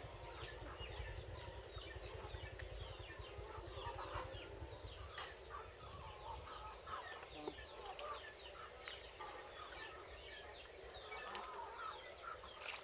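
Chickens clucking and chirping faintly, with many short calls throughout. Under them is a low rumble that fades out about halfway.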